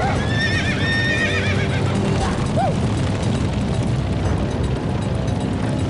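Horses neighing over the steady low rumble of a stampeding herd's hooves: a long wavering whinny in the first second and a half, and a shorter call about two and a half seconds in.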